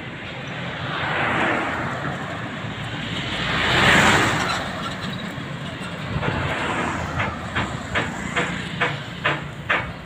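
Road traffic passing close by, one vehicle swelling up loudest about four seconds in and fading away. From about seven seconds in, a regular clacking comes in, two or three sharp clicks a second.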